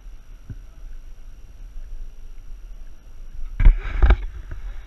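Wind rumbling on the microphone, with two loud gusts of buffeting about three and a half and four seconds in.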